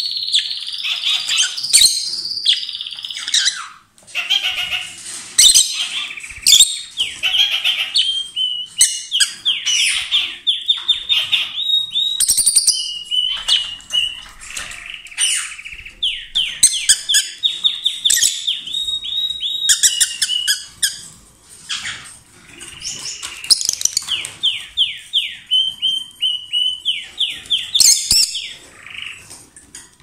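Rosy-faced lovebirds chirping loudly: runs of rapid, shrill chirps, several a second, broken by short pauses.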